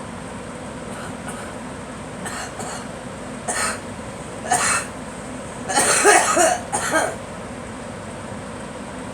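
A girl coughing in a run of coughs: short ones from about two seconds in, then the loudest and longest fit around six seconds, ending near the seven-second mark. A steady background hum runs under them.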